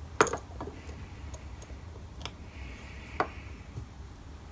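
Sharp metallic clicks and light taps as a small steel flanged bearing is pressed by thumb into a bore in an aluminium plate on a bench. There are two louder clicks about three seconds apart, with fainter ticks between them. The bearings are a tighter fit than a hand push will seat.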